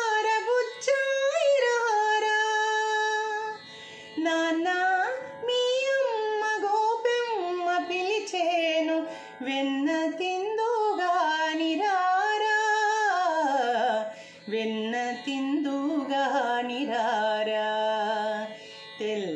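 A woman sings a Telugu film song in Mohana raga in Carnatic style, solo voice, with long held notes and gliding ornaments, breaking briefly between phrases.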